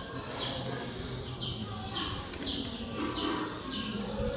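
A small bird calling over and over, short falling chirps about twice a second.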